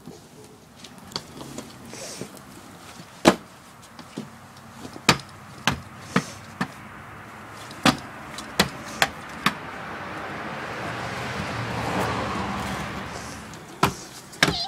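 Kick scooter clattering on asphalt: about ten sharp knocks and clacks from the wheels and deck hitting the pavement, irregularly spaced, over a rushing noise that swells in the second half and fades again.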